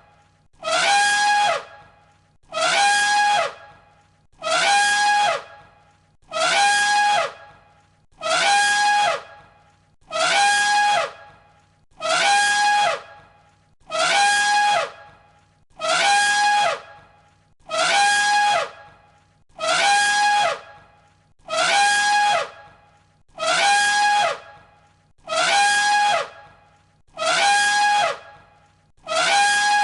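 Elephant trumpeting: the same loud, brassy call repeated about every two seconds, each blast lasting about a second, as a looped sound effect.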